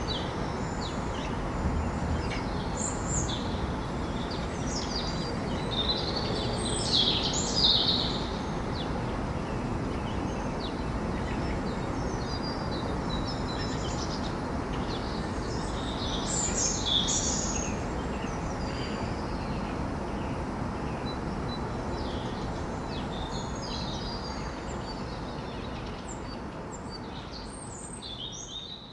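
Morning birds singing and chirping over a steady low city hum, with the busiest song about seven seconds in and again about seventeen seconds in. The sound fades out near the end.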